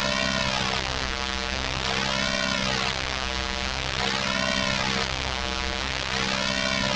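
Synthesized robot sound effect processed through the Orange Vocoder plugin: a steady, dense electronic drone whose tone sweeps up and back down about every two seconds, giving a rotating effect.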